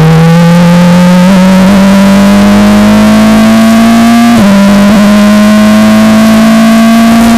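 Onboard sound of a Formula Renault 2.0 car's two-litre four-cylinder engine running hard, loud, its pitch climbing slowly as the car accelerates, with a brief drop and recovery in pitch about four and a half seconds in.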